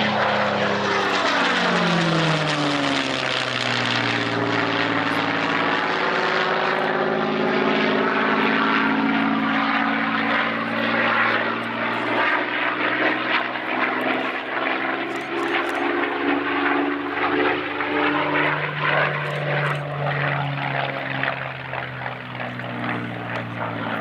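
Fiat G.59's Rolls-Royce Merlin V12 engine on a low pass, its pitch falling as the aircraft goes by in the first few seconds, then a steady propeller drone with some rise and fall as it flies on.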